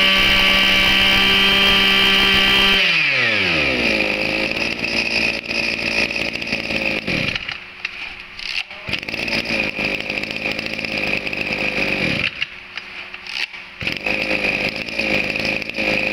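Kioritz (Echo) 26cc two-stroke brush-cutter engine running at high revs with a steady whine, then about three seconds in its pitch falls away as it drops to idle. The idle runs unevenly, sagging and picking up again several times.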